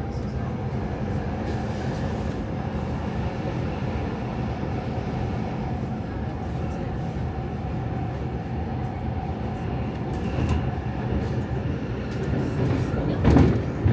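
Stockholm metro train running between stations, heard from inside the car: a steady rumble of wheels on rail with a faint running hum, growing a little louder toward the end, with a single louder knock near the end.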